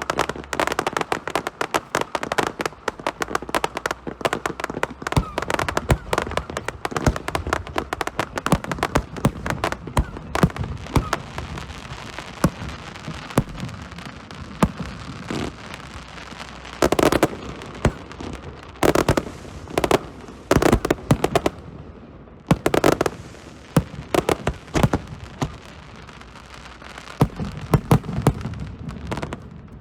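Fireworks display: a dense, rapid run of crackling reports for about the first twelve seconds, thinning to scattered louder bangs that echo, with a few quick clusters of cracks.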